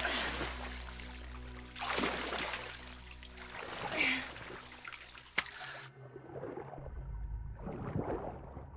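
Water splashing and sloshing in a flooded well over a low, held film score, with surges of splashing about two and four seconds in and a single sharp click near the middle.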